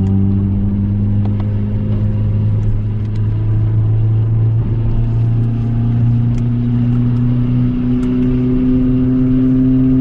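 Renault Clio III RS 197's naturally aspirated 2.0-litre four-cylinder engine heard from inside the cabin, running steadily under way, its note rising slowly in the second half.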